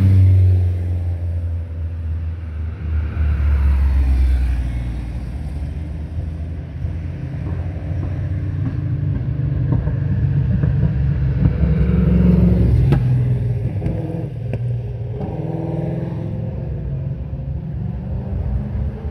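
Hillclimb competition cars driving past one after another at road pace in the participants' return convoy, their engines rumbling. The engine noise swells as each car goes by, loudest at the start as a BMW E30 race car passes, then again about four seconds and about twelve seconds in.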